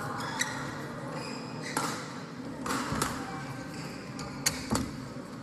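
Badminton rally: rackets striking the shuttlecock in sharp hits, about five over the few seconds, with the loudest near the end, between shoe noise on the court floor.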